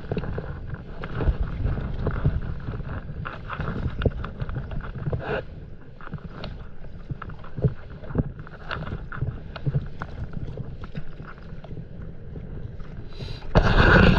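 Stand-up paddleboard paddle dipping and splashing in the sea, with water slapping at the board, over a low rumble of wind on the microphone; a louder rush of noise near the end.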